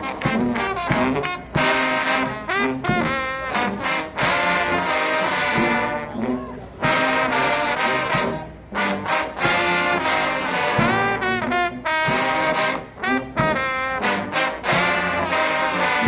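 A trombone choir playing together: several trombones sound chords and a tune, with notes sliding up and down between pitches.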